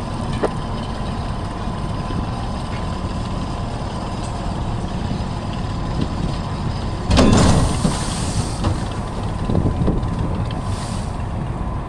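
Steady low machinery rumble with a thin steady whine, broken about seven seconds in by a sudden loud rushing burst that lasts over a second, with a fainter hiss near the end.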